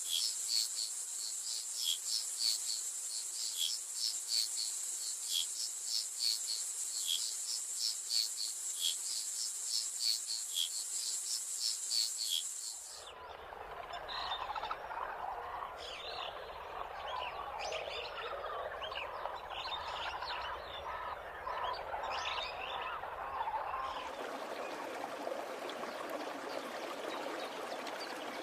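Rainforest ambience in three cuts. First a steady, high-pitched insect chorus with a rapid regular pulsing; about halfway through it changes abruptly to a chorus of frogs calling and chirping; near the end it gives way to the steady rush of running water.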